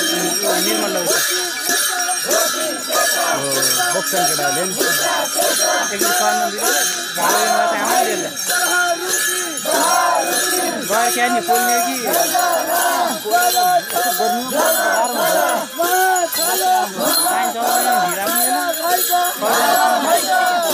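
A crowd of men shouting and chanting together, many voices overlapping, over bells jingling in a quick steady rhythm.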